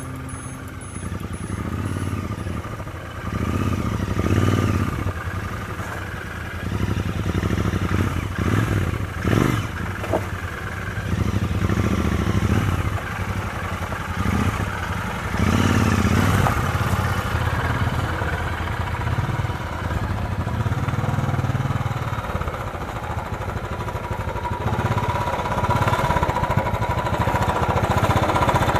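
Royal Enfield motorcycles, an Interceptor 650 parallel twin in the lead, crawling over a rocky off-road trail in low gear, engine notes rising and falling with the throttle, with a few sharp knocks.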